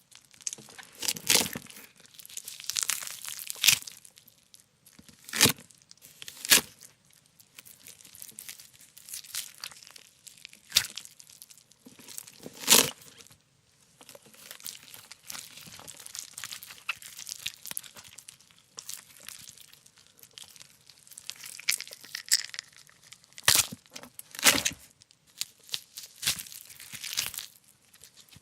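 A pumpkin being torn and broken apart as Foley for gore: irregular tearing and crunching of the rind and flesh, broken by about eight sharp cracks like bones snapping.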